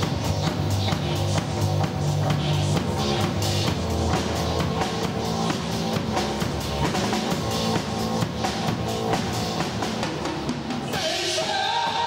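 Live band playing: drum kit keeping a steady beat under electric bass and a keyboard synthesizer. About eleven seconds in, a new held higher tone comes in over the beat.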